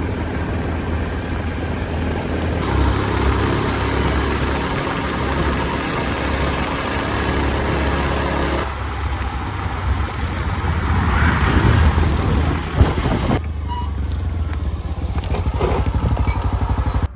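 Diesel farm machinery engines running steadily, the sound changing abruptly about three seconds, nine seconds and thirteen seconds in, with one sharp knock a little before the last change.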